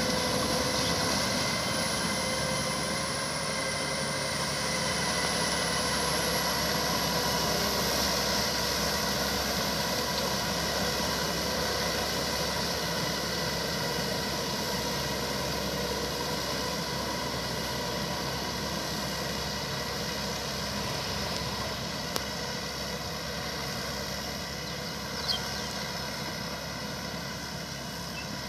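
Small farm tractor's engine running steadily as it drives a rear rotary tiller through wet paddy mud, growing gradually quieter as it moves away. Two brief clicks sound late on.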